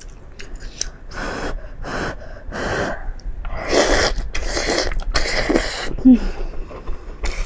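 Close-miked wet chewing and slurping of a mouthful of braised meat dipped in sesame paste, in a string of noisy smacks and breaths about every half second to a second, with a short low hum about six seconds in.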